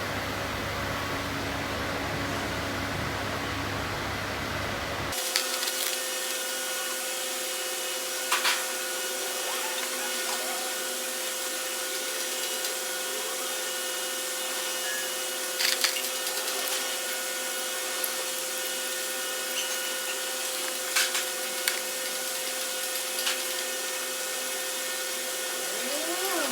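Steady hum, as of a small motor, with a few scattered sharp clicks and knocks. About five seconds in the sound changes abruptly and the deep low end drops away.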